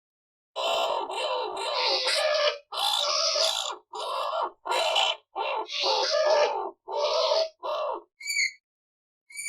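Skunk vocalizing: a quick run of about a dozen harsh, rasping squeals, each under a second long, followed near the end by a few short, high chirps.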